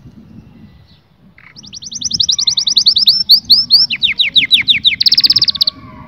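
Canary singing a song of fast repeated-note trills, starting about a second and a half in: a high trill, then a run of lower notes, then a very fast high trill that stops suddenly.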